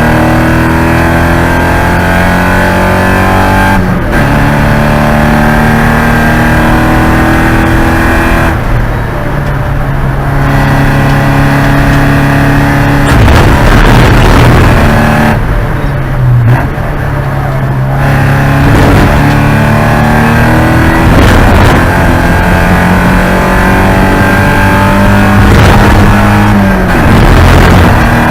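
Porsche 944 Spec race car's four-cylinder engine running hard under racing load. The revs climb steadily and drop sharply several times with gear changes, and go quieter during two lifts off the throttle.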